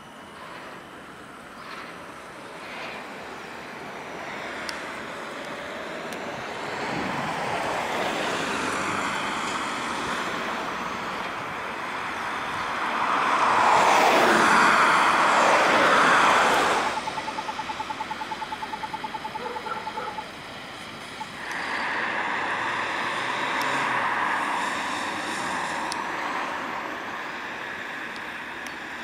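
Road traffic on a multilane city street: cars and vans passing, swelling to the loudest as a van drives by about halfway through. Just after it, a short rapid pulsing tone sounds for a few seconds.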